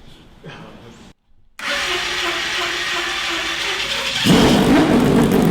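A loud motor whirring starts suddenly after a brief gap. About four seconds in it grows louder and deeper.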